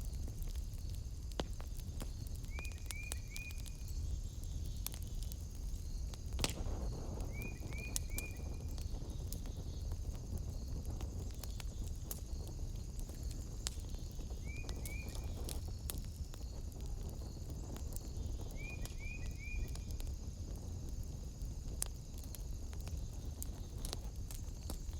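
Wood fire burning in a fireplace, crackling with scattered sharp pops over a low rumble. A steady high-pitched drone runs behind it, and a short chirp repeated three times in quick succession sounds four times.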